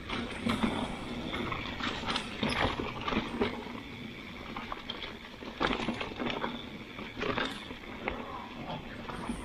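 Mountain bike ridden fast down a dirt singletrack covered in dry leaves: tyres rolling and crunching over leaves and rocks, with the bike knocking and rattling over the bumps in frequent short clatters.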